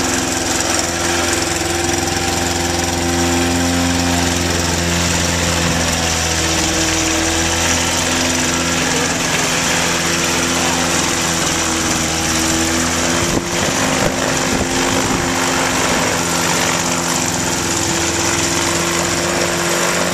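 Kitfox light aircraft's liquid-cooled engine running steadily on a ground run, its pitch shifting slightly now and then. A brief knock about thirteen seconds in.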